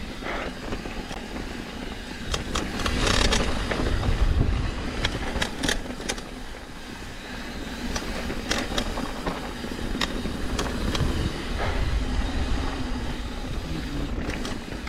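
Mountain bike rolling fast down a dirt trail: a steady rumble of tyres on dirt and wind on the microphone, with sharp clacks and rattles from the chain and frame over rocks and bumps, several of them in quick clusters.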